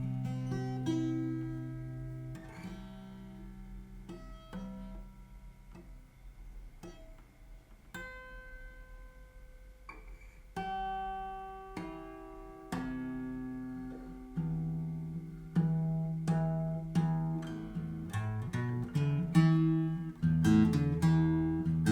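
Yamaha FG850 all-mahogany dreadnought acoustic guitar played with plucked notes and chords that ring out and fade, slow and sparse at first, then busier and louder over the last several seconds.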